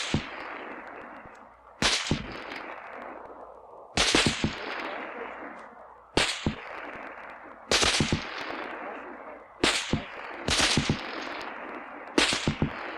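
Distant gunshots fired at irregular intervals, some singly and some in quick clusters. Each report is followed by a long rolling echo that fades over a second or two.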